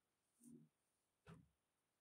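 Near silence, with two very faint short sounds about half a second and a second and a quarter in.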